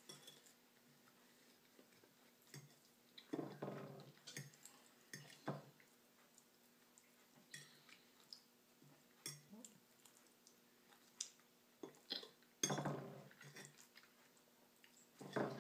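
Quiet eating sounds: a fork now and then clicking and scraping on a plate, with a few louder short chewing or handling noises.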